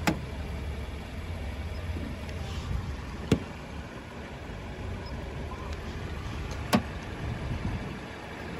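The probe of a handheld paint thickness gauge taps against a car's steel body panel three times, about three and a half seconds apart, as each coating reading is taken. A steady low rumble runs underneath.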